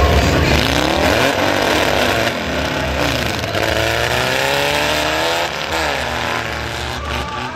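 Off-road buggy engines revving hard as the buggies launch and accelerate away, their pitch climbing and dropping several times.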